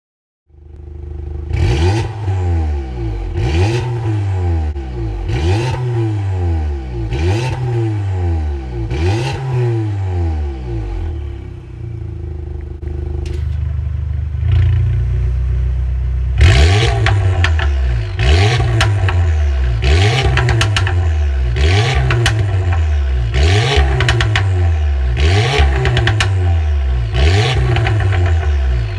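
Porsche Macan 2.0T's turbocharged four-cylinder engine revved again and again through an aftermarket stainless turboback exhaust with catalytic downpipe. The quick throttle blips come about every two seconds, each rising sharply and dropping back to idle, with a short steady idle about halfway through. In the second half the exhaust valves are open.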